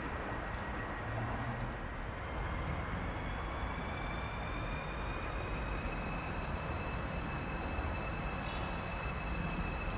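Siemens ICE 4 electric train pulling away. Its traction equipment gives a whine that starts rising in pitch about two seconds in, over a steady rolling rumble.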